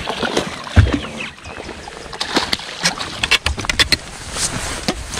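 A hooked fish splashing at the surface beside a boat. There is a heavy knock against the hull about a second in, then a quick run of sharp splashes and clicks.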